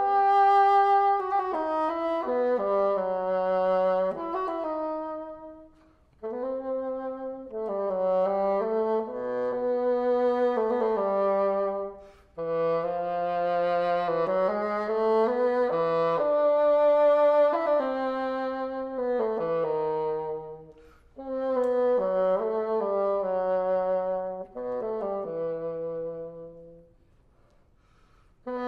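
Solo bassoon playing a single unaccompanied melodic line in phrases of a few seconds, with brief rests between them, and a longer rest near the end.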